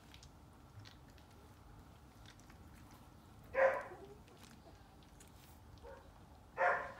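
Four-week-old sheepadoodle puppy yipping twice, short high yips about three seconds apart, during play.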